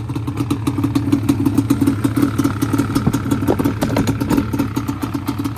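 Small 49cc scooter engine running with a fast, even pulsing beat, a little louder through the middle.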